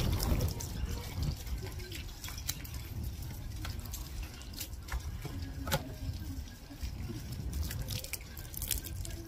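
Knife scraping the scales off a whole fish: irregular sharp scrapes and clicks over a low steady rumble.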